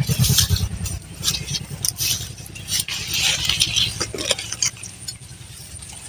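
Leaves rustling and twigs snapping as the branches of a guava tree are pulled and handled, in irregular crackly bursts. Under it a small engine runs low, fading over the first second and staying faint.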